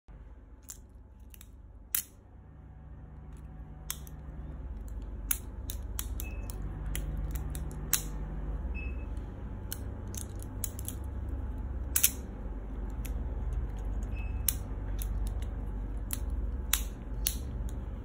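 Leatherman Free P4 multi-tool worked by hand: a string of sharp metallic clicks and snaps as its handles and tools swing open and shut, over a low steady hum.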